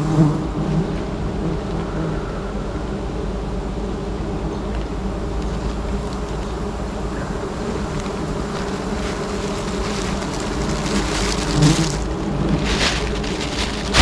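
A swarm of honeybees buzzing in a steady, dense hum, stirred up as their wild comb is cut for honey. Near the end a burst of crackling rustle joins the hum.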